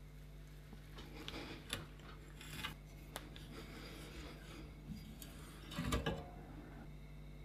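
Quiet metallic clicks and scrapes of hand tools (an adjustable wrench, then locking pliers) gripping and turning a rusted nut on a threaded tang, with one louder knock about six seconds in.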